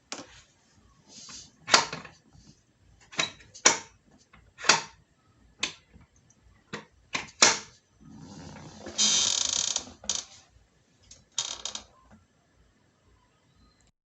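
Chair creaking and clicking: a string of short, sharp creaks and clicks at uneven intervals, then one longer creak about nine seconds in that lasts about a second, and a last short creak near twelve seconds.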